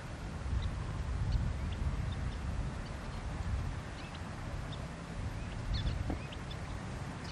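Low, uneven rumble of a distant train working at full throttle: Union Pacific 4-8-4 steam locomotive 844 with EMD DDA40X diesel 6936. Small birds chirp faintly over it now and then.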